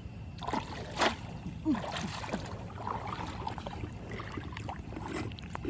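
Water sloshing and splashing, with sharp splashes about one and two seconds in.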